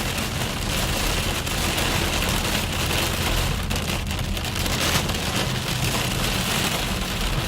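Heavy rain pouring steadily, with a low steady rumble underneath.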